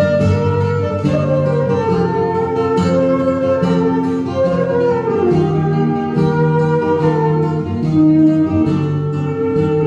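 Flute and flamenco guitar playing a granaína together. The flute carries a held melody that slides between notes, over the guitar's plucked chords and bass line.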